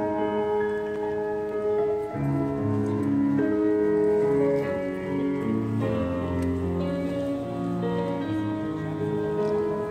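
Slow wedding processional music of held keyboard notes and chords, changing about once a second.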